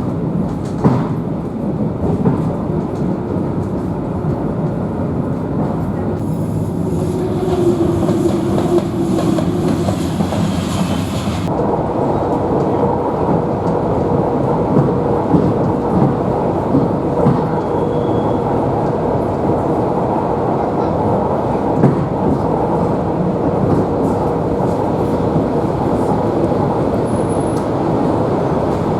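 Electric commuter train (elektrichka) running between stations, heard from inside the carriage: a steady rumble of wheels on the track with occasional sharp knocks. About twelve seconds in, a faint steady hum joins it.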